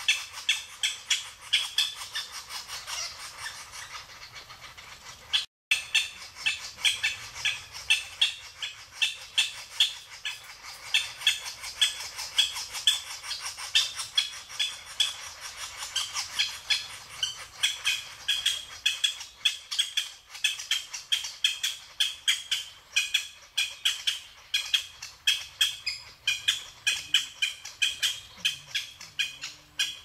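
Japanese green woodpecker nestlings begging from the nest cavity: a continuous rasping chatter of short calls, several a second, the sound of chicks calling to be fed. It breaks off for an instant about five and a half seconds in.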